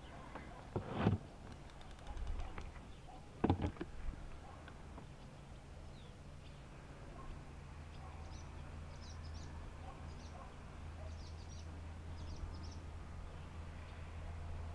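Two sharp knocks about one and three and a half seconds in, over a steady low hum; from about eight seconds, small birds chirp in short clusters.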